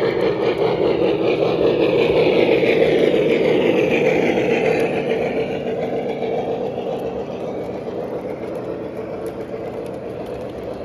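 Lionel Legacy O-gauge model locomotive running past, its onboard engine sound and wheel rumble growing louder for about three seconds, then fading steadily as it moves away.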